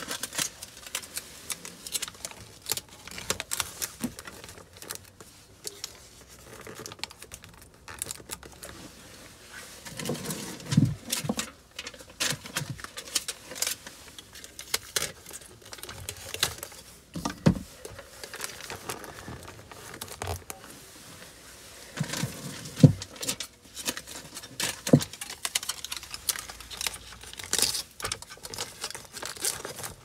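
Foil-faced duct insulation crinkling and rustling as hands press and tuck it around a zone damper actuator, with irregular small clicks and a few dull knocks; the loudest knock comes about 23 seconds in.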